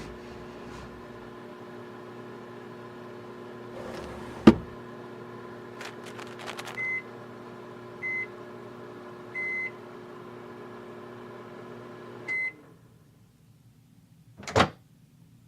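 Microwave oven running with a steady hum, heating a microwavable heat pad. There is a sharp click about four seconds in and a few short electronic beeps. The hum cuts off with a beep near the end, and a sharp click follows, like the door being opened.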